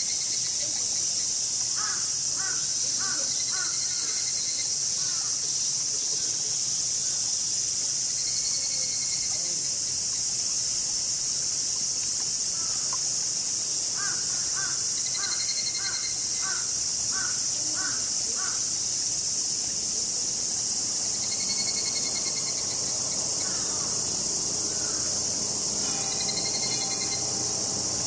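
Steady, high-pitched drone of a summer insect chorus. Over it, a bird twice gives a run of short repeated calls, about two a second.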